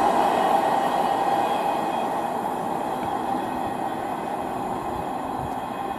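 Wagons of a container freight train rolling over the rails, a steady rumbling rush of wheel noise with faint high squealing tones, slowly fading as the end of the train moves away.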